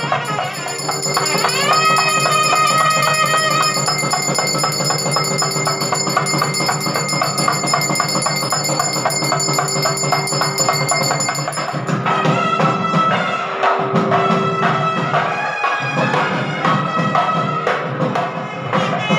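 Traditional Hindu temple music with percussion and jingling. Notes slide up into held tones over steady high ringing, and about twelve seconds in a busier drum rhythm takes over.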